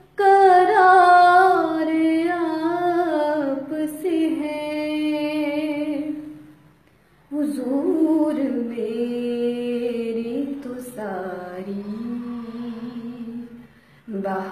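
Woman singing a naat in long, drawn-out, ornamented phrases with no clear words. The voice breaks off for about a second roughly six seconds in and again briefly near the end.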